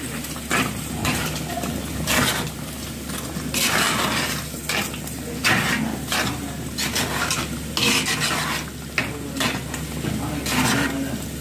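Curry simmering in a clay pot on a gas burner, broken by about eight irregular, short bursts of kitchen clatter as pieces are dropped into the pot by hand.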